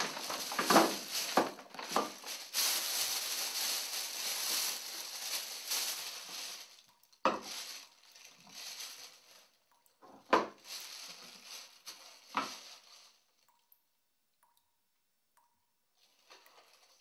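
Plastic carrier bag being handled, crinkling and rustling with several sharp knocks. The rustling is steady for about the first seven seconds, then comes in short bouts with a loud knock about ten seconds in, and dies away near the end.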